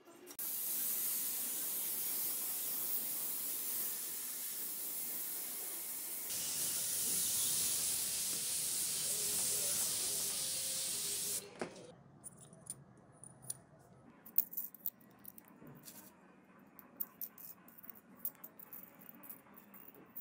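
Compressed-air paint spray gun spraying paint in a steady hiss for about eleven seconds, then cutting off suddenly. After it, faint scattered light metallic clicks as bicycle spokes and a hub are handled.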